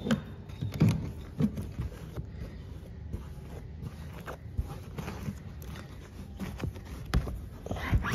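Hand brushing and rubbing across a fabric sofa seat, sweeping out debris, with irregular scrapes and thumps. The loudest come about a second in and again near the end.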